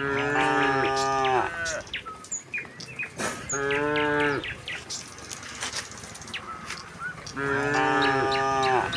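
Domestic cattle mooing three times, each a long low call that sags in pitch at its end: one at the start, one about halfway, and one near the end.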